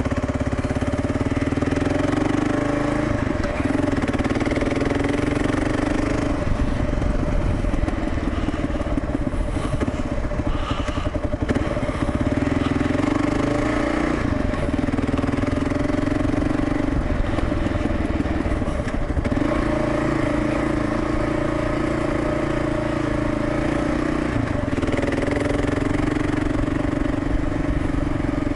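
Kawasaki KLR650's single-cylinder four-stroke engine, fitted with a Lexx MX aftermarket exhaust, running under way on a dirt track. Its pitch rises and falls every few seconds as the throttle is opened and closed.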